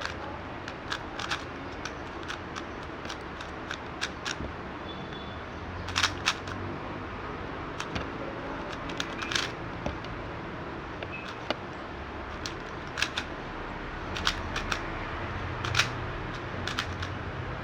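Magnetic speed cube being turned by hand: irregular sharp clicks of its layers snapping into place, sometimes a few in quick succession, over a steady low background hum.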